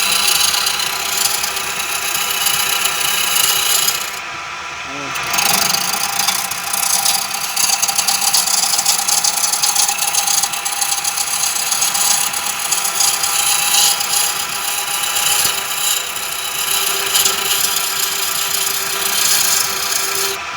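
Homemade wood lathe, driven by a washing-machine motor, spinning a wooden workpiece while a homemade chisel scrapes and cuts it; the scraping stops briefly about four seconds in, leaving the motor hum, then resumes. The chisel is still dull, only touched up on a diamond stone.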